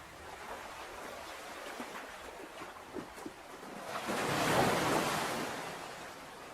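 Ocean surf: a low wash of water with faint crackles, then one wave swelling in about four seconds in and receding.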